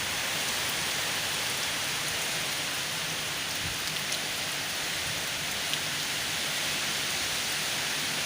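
Heavy rain pouring down in a thunderstorm, a steady hiss of rain with a few faint drop ticks.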